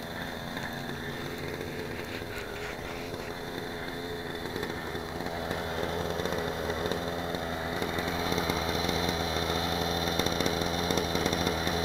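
OS glow (nitro) engine of a Vibe 55 RC helicopter idling steadily to warm up before flight, growing louder about halfway through.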